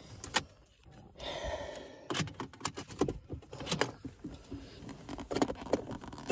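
Irregular clicks, taps and a light jangle of small hard objects being handled, with no engine running.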